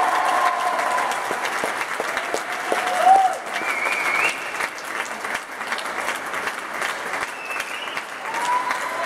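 Audience applauding at the end of a dance routine, with a few brief calls from the crowd over the clapping. The applause eases off gradually.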